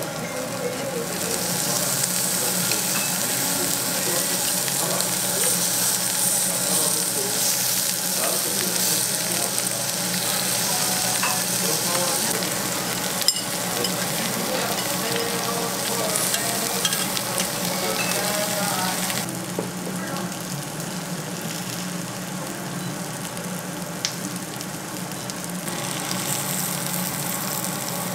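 Lamb and vegetables sizzling on a hot domed cast-iron grill pan, a steady frying hiss. It eases off for several seconds after about two-thirds of the way and picks up again near the end, with a single sharp click about halfway through.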